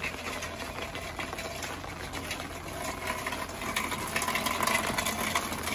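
Steady rain falling, with many small drops tapping close by.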